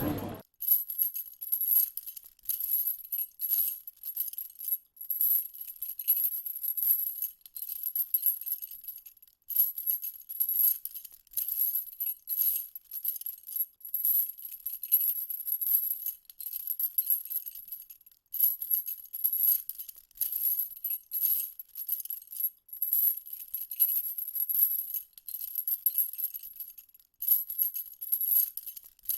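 Small metal jingles, like little bells, shaken in irregular bursts, a high bright jingling with no low sound under it.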